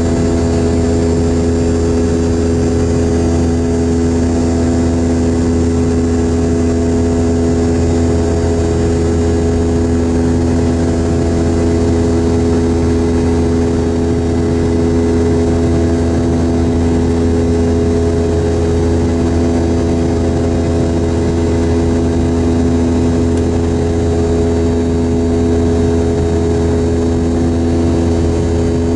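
Rolls-Royce BR715 turbofan of a Boeing 717-200, heard inside the cabin right beside the rear-mounted engine, running steadily in flight: a loud, constant drone with a deep hum and several held tones over a rush of air.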